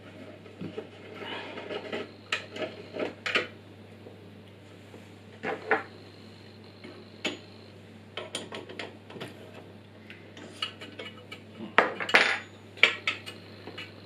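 Metal clinks, scrapes and knocks as a small drill-press vise and a flat metal workpiece are set down and shifted on a pillar drill's metal table, with a cluster of sharper clanks near the end.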